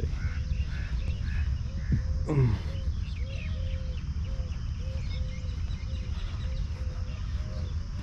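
Birds calling over a steady low rumble: one bird repeats a short low call about twice a second, with higher chirps near the start and a single falling call about two seconds in.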